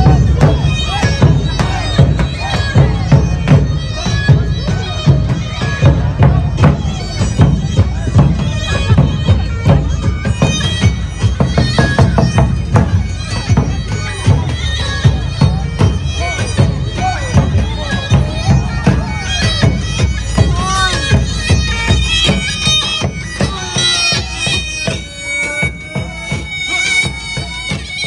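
Armenian folk dance music: a loud reed wind instrument playing a fast melody over a regular drum beat, with crowd voices underneath; it grows somewhat quieter near the end.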